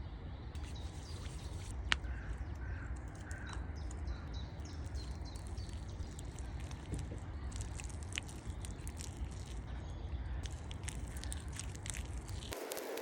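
Forest ambience: wind rumbling on the microphone, with a few short bird calls two to five seconds in and scattered light clicks. Near the end the background changes abruptly to a different hiss.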